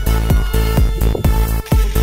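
Electronic dance music with a steady, heavy kick-drum beat, about two beats a second.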